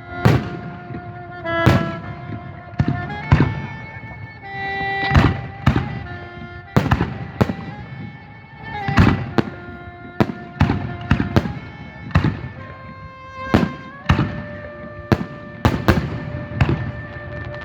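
Fireworks bursting in a rapid run of sharp bangs, roughly one a second, over music with long held notes.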